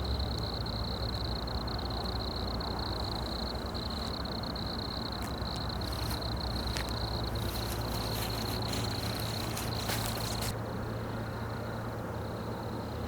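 Night insects trilling in a steady high chorus over a low background rumble, with a few clicks and rustles between about five and ten seconds in.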